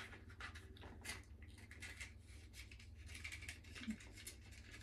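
Faint, irregular clicks and rustles of small objects being handled, over a low steady hum, with a short murmur of a voice about four seconds in.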